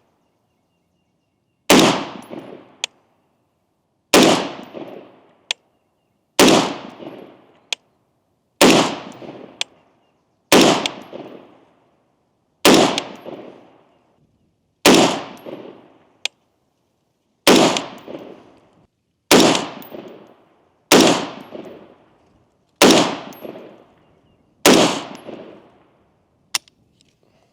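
Adams Arms 20-inch SPR AR-15 rifle fired unsuppressed, twelve single shots at a slow, even pace of about one every two seconds. This is a test of whether the rifle cycles with a lighter carbine buffer. A short sharp click follows each shot about a second later.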